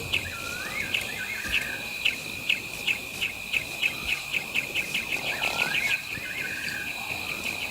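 Wild bush ambience of insects and birds: a steady high insect drone, a run of sharp chirps that speed up, and a short swooping bird call heard twice.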